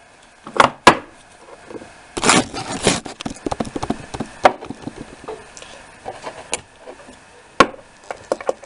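Sharp metallic clicks and knocks of a tubular lock and hand tools being handled in a bench vise: two clicks about a third of a second apart near the start, a stretch of rattling and scraping a little after two seconds, then scattered single clicks.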